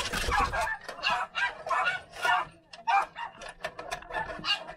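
Dogs yipping and whining at a door in a quick, uneven run of short high calls.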